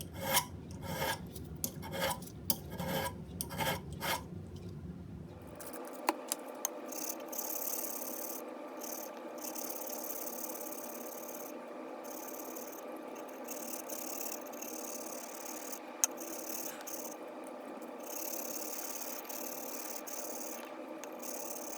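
A hand file rasps across the steel edges of a screwdriver blade in strokes about two a second, dressing edges damaged when the handle was removed. About six seconds in, this gives way to a fainter, steadier scraping.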